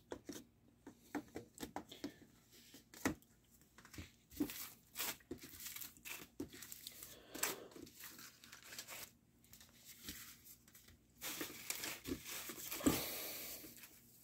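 Cardboard CD sleeves and a plastic mailer bag being handled: scattered rustles and small taps, with a longer stretch of crinkling near the end.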